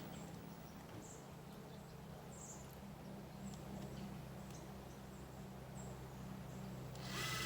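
Quiet background with a steady low hum and a few faint, short high chirps scattered through it. A louder sound starts about seven seconds in.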